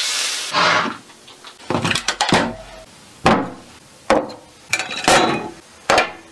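Hot oil sizzling as it is spooned over minced garlic and scallions on steamed razor clams, dying away within about a second. Then several short knocks of a bowl and a small hatchet being set down on a wooden tabletop.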